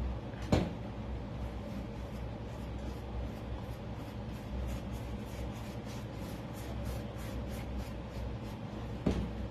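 Hand-sanding a 3D-printed helmet coated in dried wood filler with folded sandpaper: a run of quick, even scratching strokes, several a second. A sharp knock about half a second in, and a smaller one near the end, over a steady low hum.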